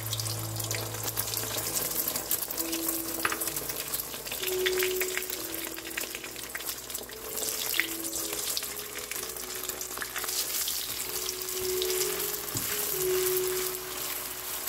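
Beaten eggs frying in hot oil in a nonstick wok: a steady sizzle with scattered small crackles and pops. Soft background music with slow held notes plays underneath.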